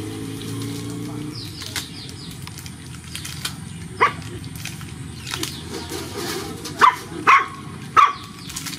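Puppies yipping as they play, four short high yips each dropping in pitch, spread over the second half.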